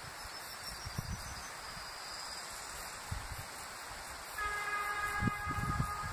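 Horn of an approaching EN57 electric multiple unit sounding one steady note from about four seconds in, over wind noise. A few faint high chirps near the start.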